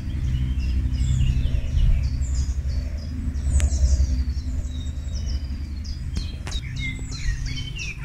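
Several songbirds chirping and trilling in short high calls, with a few lower falling calls near the end, over a loud steady low rumble with a hum.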